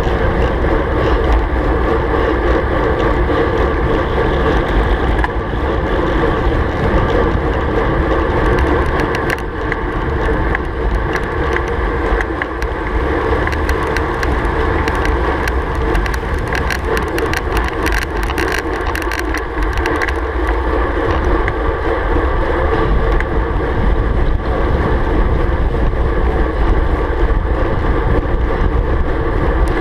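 Wind rushing over a handlebar-mounted action camera on a road bike at about 35–38 km/h, steady and loud, with road and tyre noise beneath. Between about 9 and 20 seconds in, a run of quick ticks and rattles rides over it.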